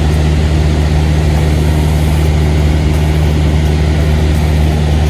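Small propeller plane's engine and propeller droning steadily, heard from inside the cabin in flight.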